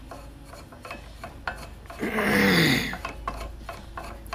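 Metal-on-metal clicks and rubbing from the threaded adapter and ram of a hydraulic cylinder in a bench pulling jig as the adapter is worked in by hand. About two seconds in comes a loud grating groan that falls in pitch over most of a second.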